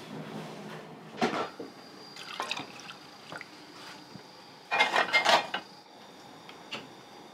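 Restaurant-kitchen clatter: a series of clinks and knocks of crockery and utensils, with liquid splashing. The loudest cluster of clinks comes about five seconds in.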